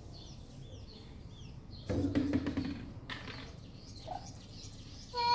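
Small bird chirping over and over, short falling chirps about three a second. About two seconds in, a louder rough, buzzy sound lasts about a second, and a clear high call begins right at the end.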